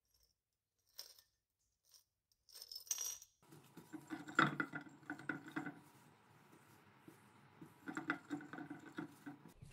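Small metal connector pieces clinking in a glass jar, a few separate clinks. After that come knocks and rustling as copper wire is packed into a crucible standing on a marble tabletop, loudest about a second after the clinks and again near the end.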